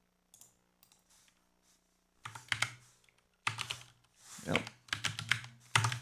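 Typing on a computer keyboard. After about two seconds of near quiet with a few faint clicks, runs of quick keystrokes follow, with a brief pause partway through.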